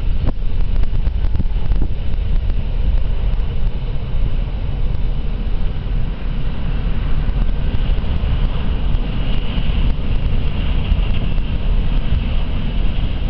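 Wind buffeting the microphone, a loud steady rumble. Under it is a faint hum from the approaching car ferry MV Clansman, whose higher note grows in about halfway through.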